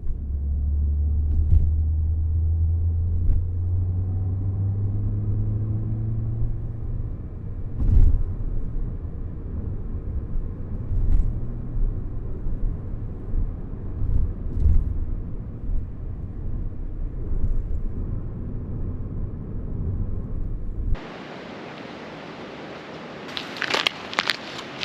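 A steady low rumble with a few soft knocks, which cuts off abruptly about three quarters of the way in. A quieter, even hiss follows, with a few crackling clicks near the end.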